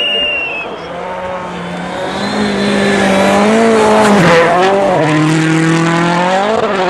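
World Rally Car's turbocharged four-cylinder engine at full effort on snow. The note holds, steps down and climbs again several times with the throttle and gear changes.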